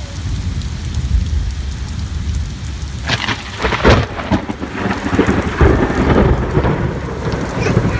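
Heavy rain falling, over a steady low rumble. About three seconds in, a louder crackling patter of drops joins it and keeps on.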